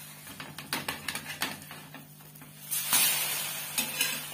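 Spatula scraping and clicking against a tawa as it works under an omelette. About three seconds in, the omelette is flipped and the uncooked side sizzles loudly on the hot oiled pan, the sizzle slowly easing off.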